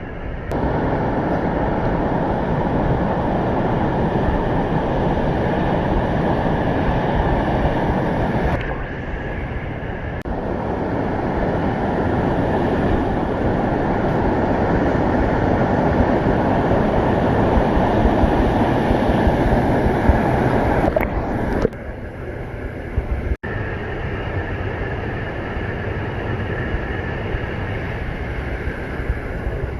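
Waterfall pouring into a pool: a steady, loud rush of falling water. The level drops and returns abruptly a few times.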